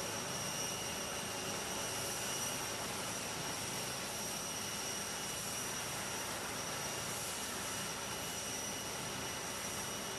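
Steady jet turbine whine and rush from Air Force One, a Boeing VC-25A (747), running while parked, with a thin high whistle over an even rushing noise.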